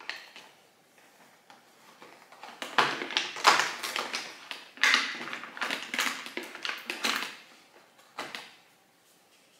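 A cardboard advent calendar door being pried and torn open, with a run of rustling, scraping and tapping of cardboard over a few seconds, then a single tap near the end.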